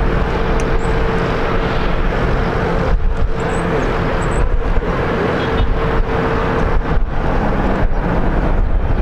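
Airbus A320neo's CFM LEAP-1A turbofan engines at taxi idle as it rolls along the runway: a steady drone with a low rumble and a steady hum running through it.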